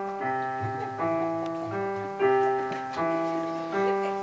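Piano playing the introduction to a song: sustained chords struck one after another, about once a second, each ringing and fading.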